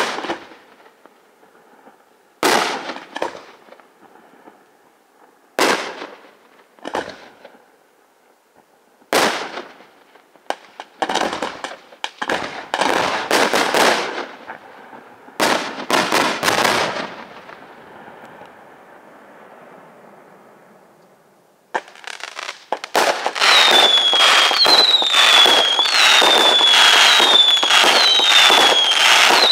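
Aerial fireworks display: separate shell bursts with crackling tails, then a cluster of bursts whose crackle fades away. In the last six seconds or so comes a dense barrage of rapid bangs with whistles that fall in pitch, about one a second.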